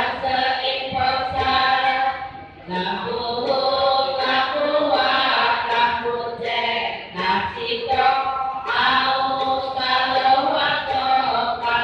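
A group of voices chanting in unison, a sung devotional temple chant in long held phrases with brief breaks between them.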